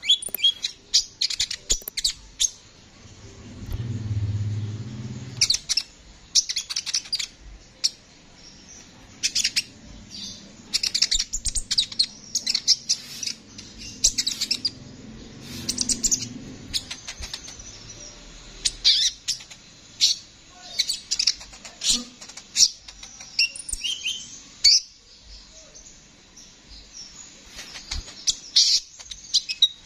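Male kolibri ninja (Van Hasselt's sunbird) singing: rapid, high-pitched twittering phrases in quick clusters with short pauses between. A faint low rumble sits in the background for a couple of seconds early on and again mid-way.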